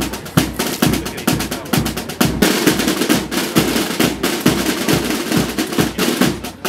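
A corps of military side drums (snare drums) playing together, beating a rapid rhythm with rolls over a regular bass drum beat.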